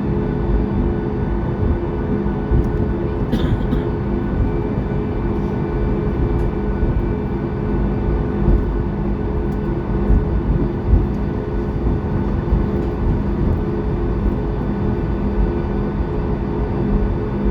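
Cabin noise inside a Boeing 737 MAX 8 on the ground before takeoff: the steady hum of its CFM LEAP-1B engines at idle over a low rumble. There is a faint click about three seconds in.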